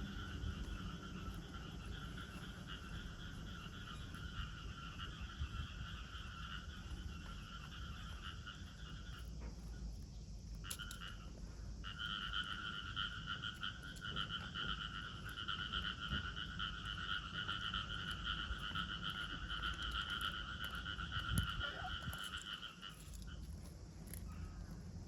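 A cicada singing a steady, even buzz that breaks off about a third of the way in, comes back briefly, then runs on until shortly before the end, over a low background rumble.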